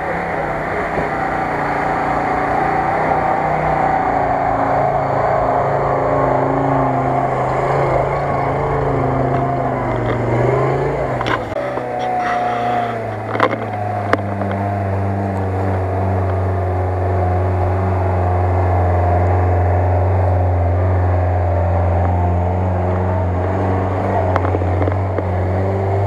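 Off-road 4x4 engine working under load up a muddy hill, its pitch climbing about ten seconds in, then settling into a steady low drone. A few sharp knocks in the middle.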